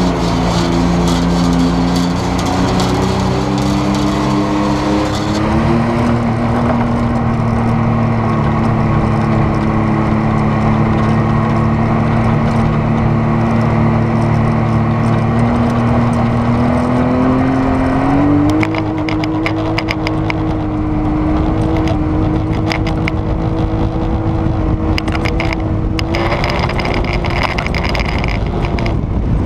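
Off-road vehicle engine driving at speed, echoing in a tunnel for the first few seconds. Its pitch rises as it accelerates early on, holds steady, then steps up twice in the second half, with scattered crackles over the top.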